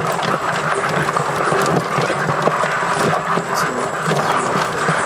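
Crabs moving in a barrel: many hard legs and shells clicking, tapping and scraping against the barrel wall and one another in a dense, irregular patter.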